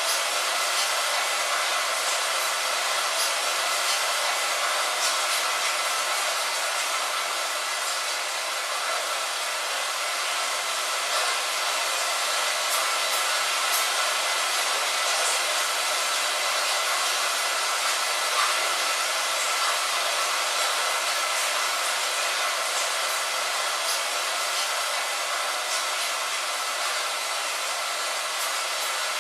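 Steady light rain falling on a window: an even hiss with faint scattered drop ticks.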